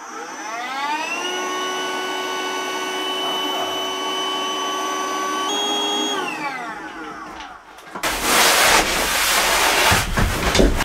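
DeWalt cordless battery-powered inflator pumping up an air mattress. Its motor whine rises as it spins up, holds steady for about five seconds, steps slightly higher, then winds down as it is switched off. After a brief gap, a loud, steady rush of noise takes over near the end.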